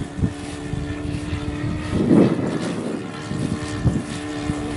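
The four-stroke O.S. FS40 glow engine of a radio-controlled model airplane runs in flight, a steady drone from high overhead. Low gusts of wind buffet the microphone, the strongest about two seconds in.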